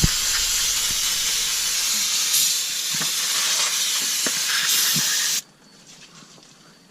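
Aerosol brake cleaner spraying in one long, steady hiss to flush brake dust and old grease out of a brake caliper. The spray stops suddenly about five seconds in.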